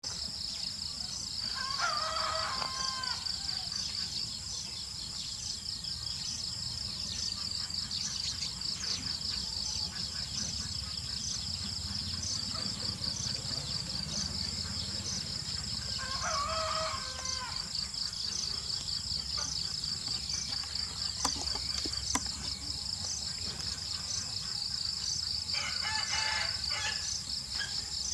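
A steady, pulsing chorus of insects, with a rooster crowing twice, about two seconds in and again about halfway through, and another fainter bird call near the end.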